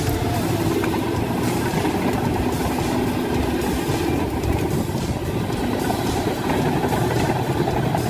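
Engine of a heavy forestry machine running steadily.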